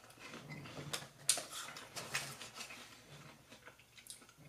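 A person chewing a bite of apple, with soft, irregular crunching clicks and a few faint low hums.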